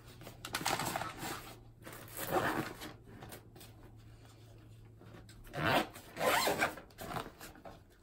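A handheld car vacuum's power cable is handled and stowed in its fabric carry bag, whose zip is pulled in a few short bursts.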